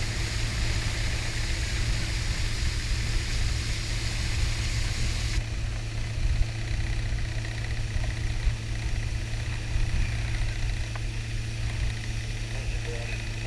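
Outboard motor running steadily at speed, pushing a boat fast along a river, with a high rushing hiss of wind and spray. The hiss cuts off suddenly about five seconds in, leaving mostly the steady engine drone.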